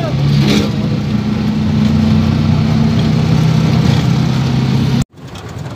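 Auto-rickshaw engine running steadily, heard from inside the rickshaw's cabin. It cuts off abruptly about five seconds in, giving way to quieter street noise.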